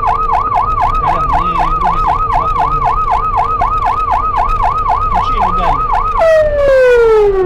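Police car siren on yelp, rising and falling fast at about four sweeps a second. About six seconds in it switches to a single long falling tone, louder than the yelp.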